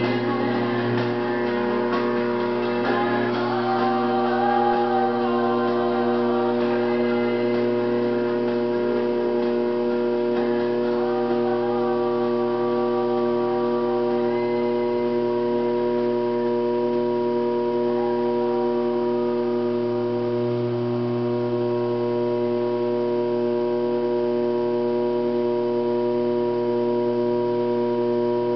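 A steady hum made of several held tones, with some shifting tones in the first few seconds.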